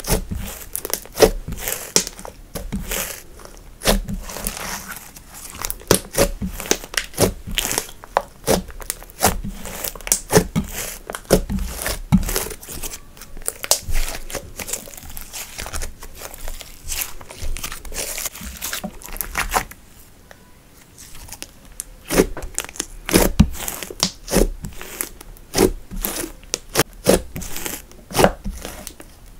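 Hands kneading, pressing and stretching a sticky slime mixed with eyeshadow and glitter, giving a fast, irregular run of wet clicks and pops with sticky tearing as it pulls apart. It goes quieter for a couple of seconds about two-thirds through, then the clicking picks up again.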